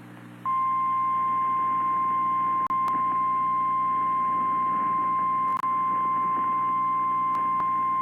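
Emergency Alert System attention tone broadcast over FM radio: one long, steady high tone starting about half a second in, with a couple of brief dropouts, over a low steady hum.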